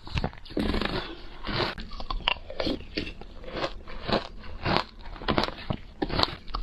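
Someone chewing and crunching matcha shaved ice, an irregular run of crisp crunches about two a second.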